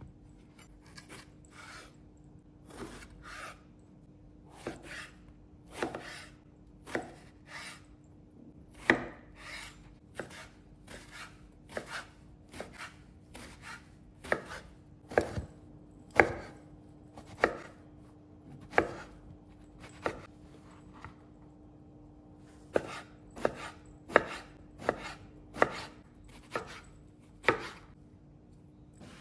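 Kitchen knife chopping eggplant flesh into cubes on a wooden cutting board: irregular knocks of the blade on the board, about one or two a second, with a short pause about two-thirds of the way through.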